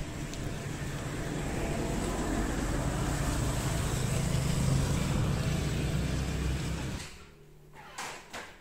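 Steady rain and wind noise with a low rumble, as in heavy weather on an open street. About seven seconds in it cuts off to a quiet room, where a few short clicks are heard.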